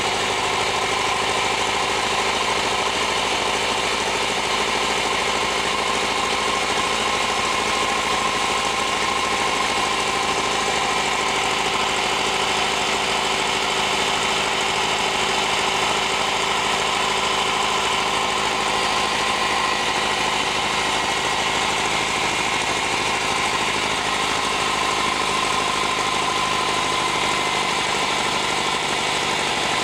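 Belarus tractor diesel engine running steadily, driving a flour mill. The engine speed and level hold constant throughout.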